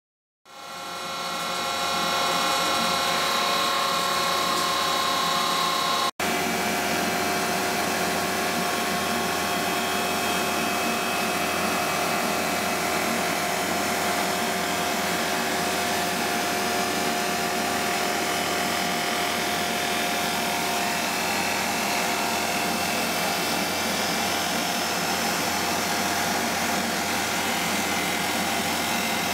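CWI-S1701 17-inch drum sander running while a board is fed through on its conveyor feed belt. It is a steady machine noise with a held whine. It comes up from silence over the first second or two and drops out sharply for an instant about six seconds in.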